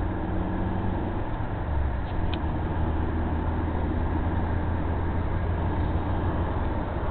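Steady road noise inside a car cruising at motorway speed: a low engine and tyre drone with an even rush of road and wind noise.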